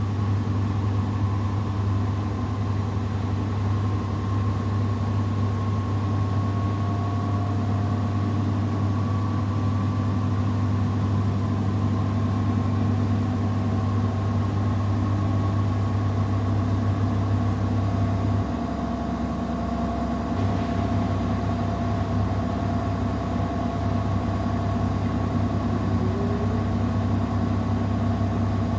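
Samsung WW70T4020EE front-loading washing machine spinning its drum with clothes in a spin cycle: a steady motor hum with a faint higher whine that drifts slowly, the low hum easing slightly about 18 seconds in.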